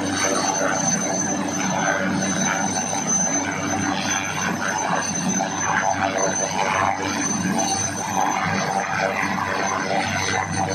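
Helicopter turbine engine running on the ground: a steady high whine over a continuous low hum and rushing noise.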